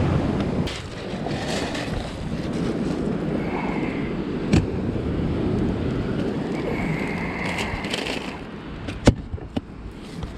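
Wind buffeting the microphone over the rush of surf on a sand beach, with a few sharp clicks: one about halfway through and two close together near the end.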